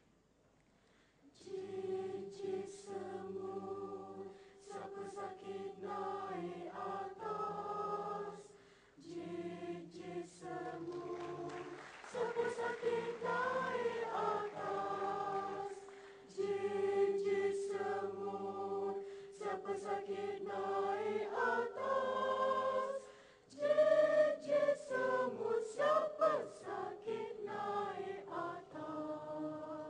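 Mixed men's and women's choir singing, starting about a second and a half in, in held chords broken into phrases by short pauses.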